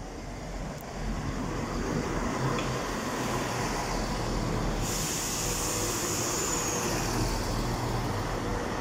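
CrossCountry Class 170 Turbostar diesel multiple unit pulling into the platform, its underfloor diesel engines giving a steady low drone. A hiss starts suddenly about five seconds in and continues under the engines.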